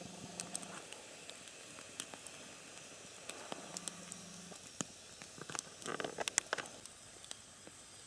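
Campfire embers crackling faintly with sparse pops, while skewered sausage slices roasting over the coals give a faint high squeak.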